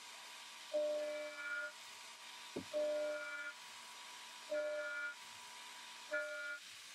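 CNC mill end mill cutting 1144 stress-proof steel in repeated plunges: each time it bites, the cut rings with a pitched squeal lasting under a second, about four times, over a steady faint spindle whine. A single sharp knock comes between the second and third cuts.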